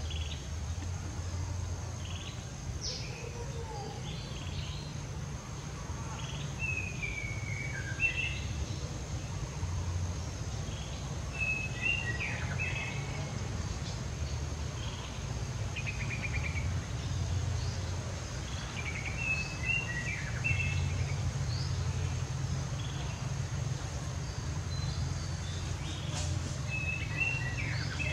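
Outdoor ambience: a bird repeats the same short chirping phrase with falling notes every few seconds over a steady low rumble and a thin, steady high whine.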